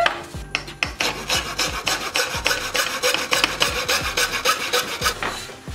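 Hacksaw cutting through white trim molding with rapid, even back-and-forth strokes, stopping shortly before the end.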